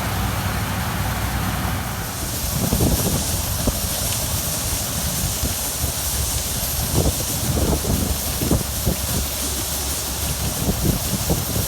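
New Holland TX34 combine harvester running in the field: a steady low engine drone. About two seconds in the sound shifts to a strong high hiss with irregular low thumps and rumbles.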